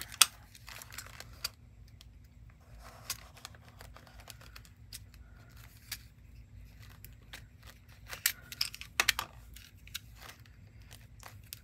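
Fingers and nails clicking and tapping on a small clear plastic case of safety pins while trying to pry it open; scattered light clicks, with a sharper one just after the start and a cluster of louder clicks about eight seconds in.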